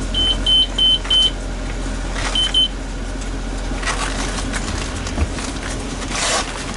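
Short, high electronic beeps at one pitch, four in quick succession and then two more a second later, over a steady low vehicle hum.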